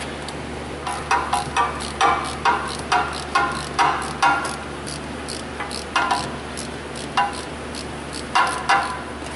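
Ratchet clicking in short strokes as it turns an oil pressure switch socket to break loose a leaking oil pressure switch. The strokes come two or three a second for the first few seconds, then more slowly, with a last pair near the end.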